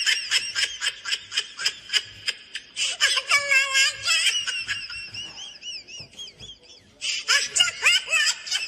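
A small animal's rapid, high-pitched squeaking chirps in laugh-like runs, with warbling notes that bend up and down and a short lull about seven seconds in.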